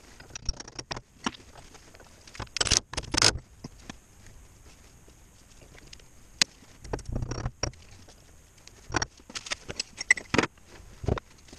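Hand tools and small metal parts clinking and clattering in irregular bursts, with several sharp clicks, as work goes on at a differential's pinion.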